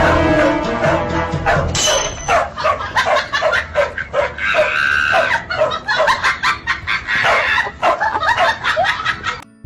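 A dog barking and yipping in a fast series of short calls, about three or four a second, over music. The sound cuts off abruptly near the end.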